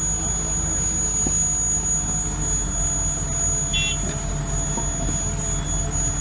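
Steady low mechanical rumble, with a short electronic beep about four seconds in.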